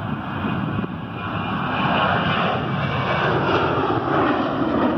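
Boeing 737-800's CFM56-7B turbofan engines at takeoff thrust as the airliner climbs out, a broad jet rush growing steadily louder, with faint tones sliding down in pitch.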